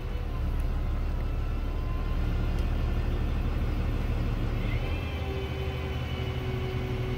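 Freightliner truck engine idling steadily with its PTO-driven hydraulic pump running, heard from inside the cab while the auto-leveling system works the outriggers to bring the truck level. About five seconds in, a faint higher whine joins the drone.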